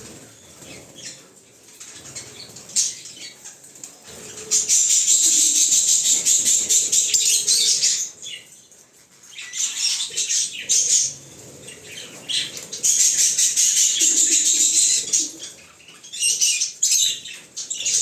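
African lovebirds chattering: stretches of high, rapid, scratchy calls lasting a few seconds each, with quieter calls in the gaps.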